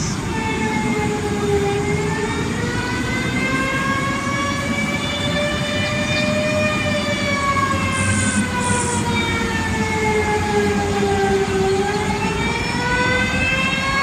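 A warning siren wailing slowly, its pitch rising for about five seconds, falling for about five, then starting to rise again near the end, over a steady low rumble. It sounds as part of a flood-evacuation alert.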